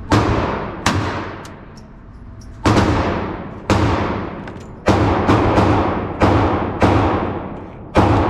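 Gunshots fired one after another at a gun range, about nine shots at uneven intervals that quicken in the second half, each with a sharp crack followed by a long ringing decay.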